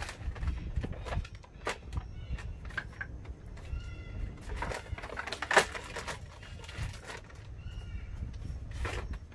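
Clicks and knocks of a plastic backpack sprayer's lid and tank being handled and closed up, the sharpest about halfway through. Now and then come short, high-pitched calls.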